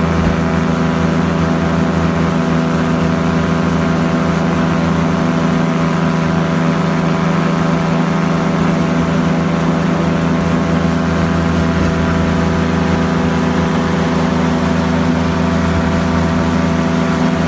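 Light aircraft engine and propeller running steadily in level flight, heard from on board, with an even, unchanging pitch.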